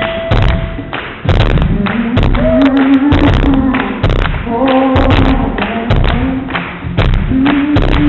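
Live blues-rock band playing, with a male lead vocal over heavy, regular drum hits, in a poor-quality audience recording.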